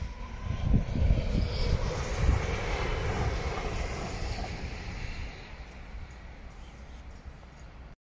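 An unseen passing vehicle's rumble, swelling over the first couple of seconds and then slowly fading away.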